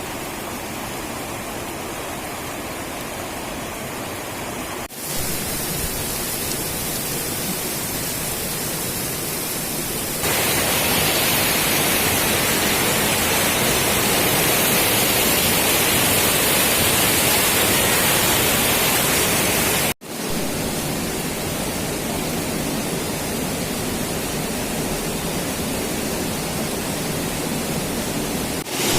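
Steady rushing noise of a waterfall. It shifts abruptly a few times: louder and brighter from about ten seconds in, then back to a softer rush after a brief dropout around twenty seconds.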